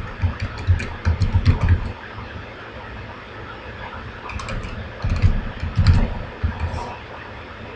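Typing on a computer keyboard: two quick runs of keystrokes with a pause of about two seconds between them.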